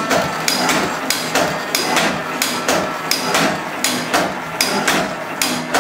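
Old stationary engine and its belt-driven generator running, with a steady sharp clacking of about three knocks a second.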